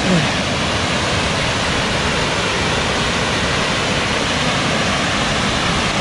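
Steady, even rushing of a waterfall and the fast-flowing river below it.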